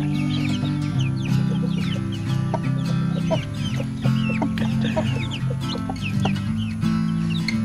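Young chicks peeping, many short high chirps a second, over background music with sustained low notes.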